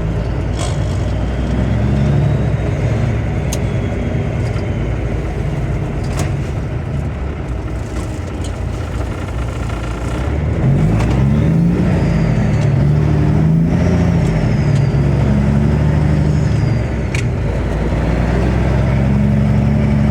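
Gleaner M3 combine's engine running under load, its pitch swinging up and down and getting louder about halfway through.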